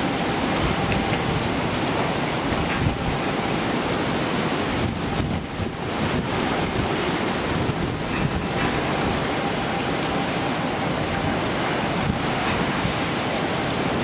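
Hurricane-force wind and heavy rain: a dense, steady rush that surges and eases, with the wind buffeting the microphone.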